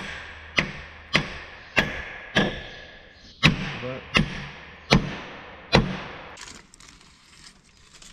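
Hammer blows driving a pin into a plough's cast pivot housing: about nine heavy strikes, a little under two a second with a short pause midway, each with a brief metallic ring. The hammering stops about six seconds in.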